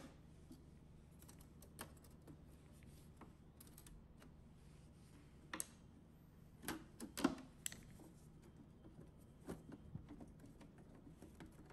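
Sparse light clicks and taps of metal on metal as the faceplate of a 1968 Sony TC-560D reel-to-reel tape deck is pried loose, with a small cluster of sharper clicks about seven seconds in.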